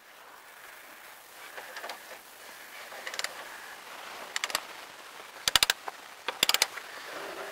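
Metal hand tools working on bolts of a truck's front suspension: short runs of quick, sharp metallic clicks that come several times, loudest about five and a half and six and a half seconds in.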